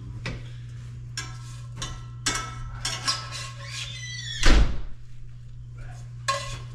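Metal kitchen tongs clicking and clinking against a skillet and a plate while food is served, with scattered sharp clinks and the loudest clank about four and a half seconds in. A steady low hum runs underneath.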